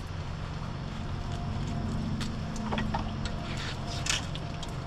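Clothes hangers clicking and tapping against a wooden hanging rod as clothes are hung up, a few scattered light clicks over a steady low mechanical hum.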